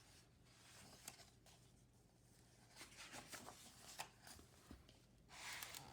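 Faint rustling and soft clicks of a paperback picture book being handled as its pages are turned, with a brief, louder paper swish near the end.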